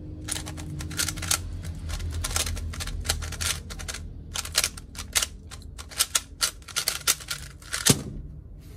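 QiYi MP magnetic 3x3 speedcube, its magnets set fairly heavy, turned at speed through a solve: rapid runs of plastic clicking and clacking as the layers snap into place, in bursts with short pauses between. A single thump near the end as the solve is stopped.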